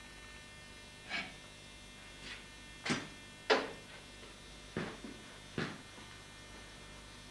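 A steel bar being lifted out of a bending jig clamped in a bench vice, knocking and clanking against the metal about six times at uneven intervals, over a steady electrical hum.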